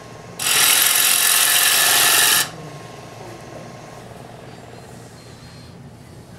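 Turning gouge cutting a spinning workpiece on a wood lathe: a loud hiss of the cut with a short break just at the start, then cutting again until about two and a half seconds in. After that only the lathe running quietly is left.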